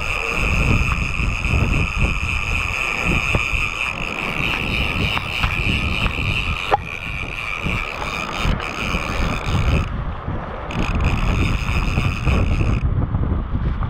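Wind buffeting the microphone, over a steady high whine from a fly reel while a hooked false albacore is fought on the rod. The whine breaks off briefly about ten seconds in and again near the end, and there is one sharp click about halfway through.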